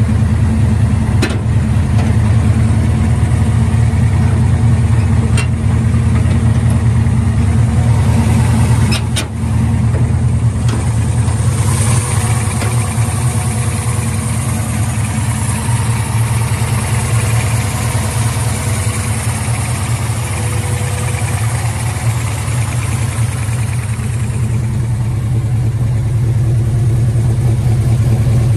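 Engine of a custom 1964 Chevrolet C10 panel truck idling steadily. From about twelve seconds in, for some ten seconds, it sounds brighter and hissier, as with the open engine bay close by. A few sharp clicks come in the first ten seconds.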